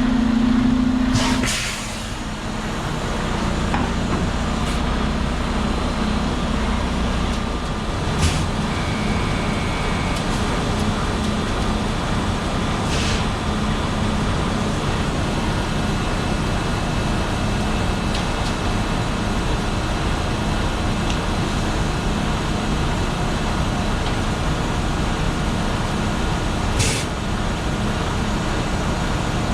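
Diesel engine of a Terex FD4000 front-discharge concrete mixer truck running steadily. A hum drops away about a second and a half in, and a few short air hisses come at intervals, one of them near the end.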